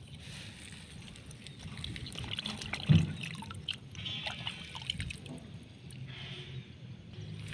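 A hand splashing and dribbling in shallow muddy water while picking up freshwater snails, with small clicks and a loud knock about three seconds in.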